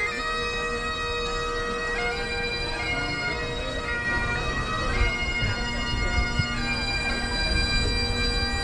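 Great Highland bagpipes played solo: the drones hold a steady note under a chanter melody that changes note every second or so.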